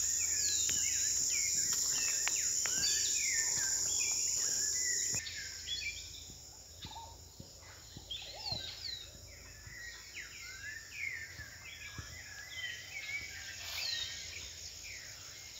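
Insects buzzing in a steady high drone over many birds chirping. The insect drone stops abruptly about five seconds in, leaving scattered bird chirps and calls over a quiet background.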